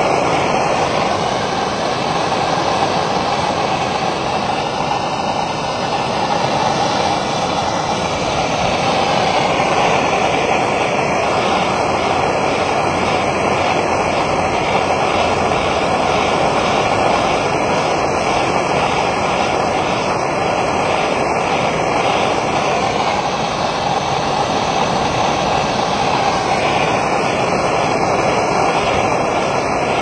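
Brazing torch flame burning steadily: a loud, continuous, even hiss with no breaks, while it heats the work being shielded by the heat-blocking putty and the wet rag.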